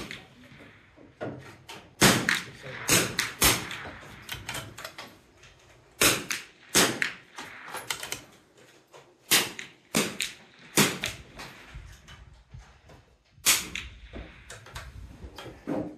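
.22 LR rimfire rifles firing single shots at irregular intervals, about a dozen sharp cracks, with fainter clicks and knocks in between.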